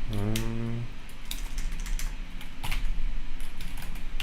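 Computer keyboard typing in scattered keystrokes, with a short hummed "mm" from the typist in the first second. A low mains hum runs underneath.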